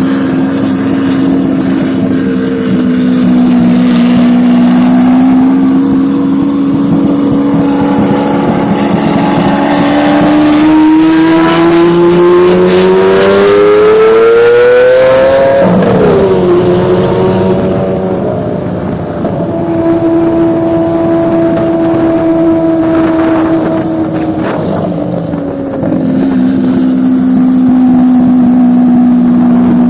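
Lamborghini Aventador V12 running loudly through its exhaust. It holds a steady note, then the revs climb slowly over several seconds and fall off sharply about halfway. It holds at a somewhat higher pitch for a few seconds and settles back down near the end.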